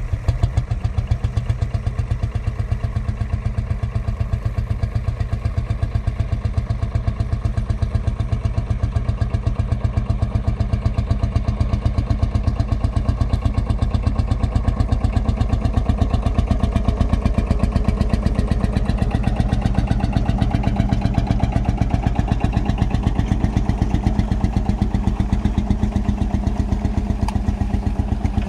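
Field Marshall Series 2 tractor's single-cylinder two-stroke diesel engine running steadily under load while pulling a trailer plough, with an even, rapid exhaust beat.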